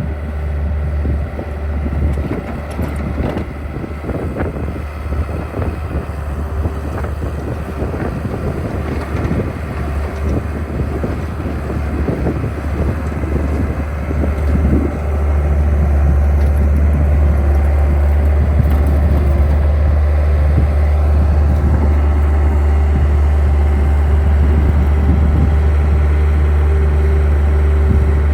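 Engine running steadily with a deep, constant rumble and wind buffeting the microphone, steadier and a little louder from about halfway through.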